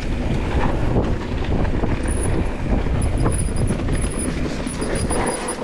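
Mountain bike ridden fast down a dirt forest trail: tyres rumbling over dirt and roots, with frequent knocks and rattles from the bike. A faint high whine comes and goes in the second half, and the noise eases off at the very end.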